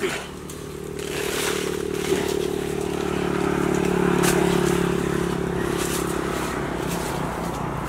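An engine running steadily, swelling louder toward the middle and then easing off, with rustling and snapping of leaves and branches.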